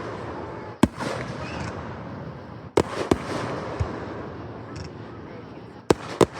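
Aerial fireworks shells bursting in sharp booms: one about a second in, two close together about three seconds in, and two more near the end, with a low rumble filling the gaps between them.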